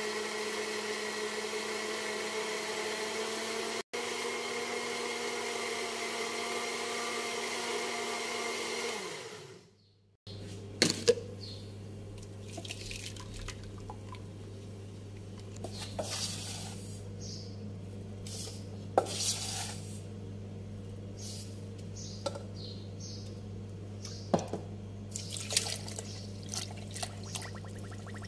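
Small electric kitchen blender running steadily, blending sugar, lime juice and fish sauce into a frothy liquid, then winding down in pitch as it is switched off about nine seconds in. After that, the blended liquid is poured from the blender jug into a stainless steel pot, with a few sharp clinks and knocks.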